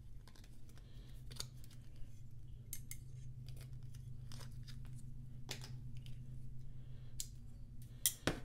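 Scattered small clicks and snips as a folding pocket knife cuts the string of a paper hang tag off a watch's leather strap, with light handling of the tag, over a steady low hum.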